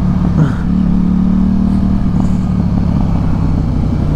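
KTM 790 Duke's parallel-twin engine running through an aftermarket Arrow exhaust at steady cruising revs, recorded at the rider's helmet. The engine note dips briefly and picks up again about half a second in.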